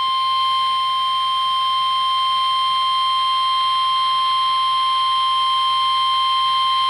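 NOAA Weather Radio warning alarm tone: a single steady high tone of about 1050 Hz held without a break, over light radio hiss. It is the alert signal that sets off weather radio receivers, sent here as part of the required weekly test.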